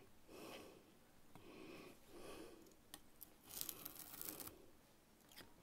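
Faint scratching of a metal modelling spatula drawn along a steel ruler, scoring a line into a strip of Styrodur foam; the longest, loudest stroke comes about three and a half seconds in.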